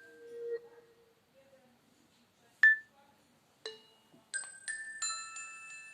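Preloaded alert tones of a Nokia Lumia 521 phone played through its speaker: a tone fading out at the start, two single bell-like pings about a second apart, then a quick run of ringing chime notes near the end.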